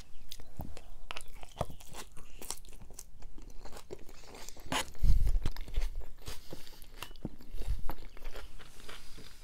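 Close-miked chewing and crunching of a mouthful of noodle salad with greens and cucumber, many small wet crackles, with a low thump about five seconds in.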